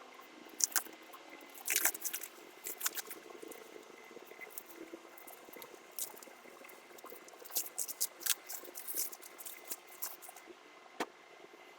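Irregular soft crackles and clicks of things being handled, in scattered clusters, with one sharper click near the end.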